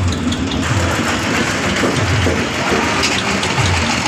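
Small cattle-transport vehicle's engine idling, a low rumble that swells about once a second under a steady wash of noise.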